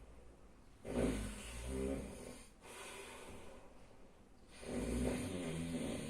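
A sleeping person snoring loudly: two long, rattling snores about four seconds apart, with a quieter breath between them.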